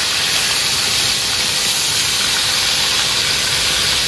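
Battered tofu pieces frying in hot oil in a wok, a loud, steady sizzle.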